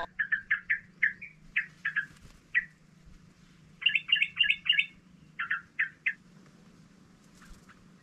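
Yellow-vented bulbul calling in short, sharp chattering notes: a run of quick single notes, a fast burst about four seconds in, and a few more around six seconds.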